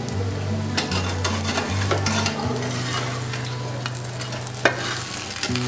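Gola ruti batter sizzling in oil in a nonstick frying pan while a steel spatula scrapes, presses and taps against the pan, with one sharp clack of the spatula near the end.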